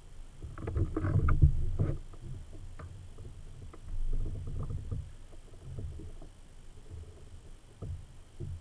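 Water sloshing and bumping against a Hobie kayak's hull in uneven low surges, loudest about a second in and again around four seconds in, with a few light knocks and clicks from rod-and-reel handling as a fish is played.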